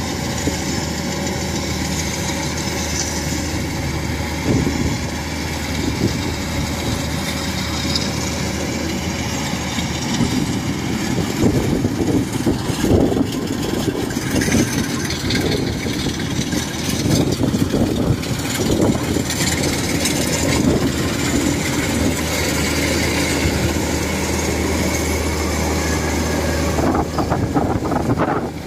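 Rice combine harvester's diesel engine running steadily under load as the machine cuts through standing rice.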